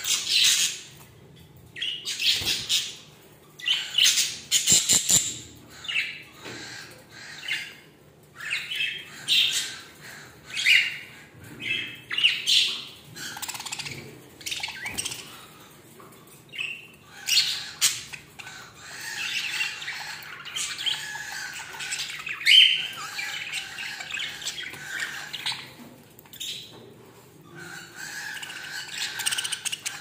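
A flock of budgerigars chirping and squawking, in scattered bursts at first and a denser, nearly continuous chatter through the second half.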